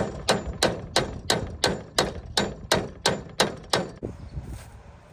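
Sharp metal-on-metal clicks from a hand tool working on a lawnmower deck, evenly spaced at about three a second, stopping about four seconds in.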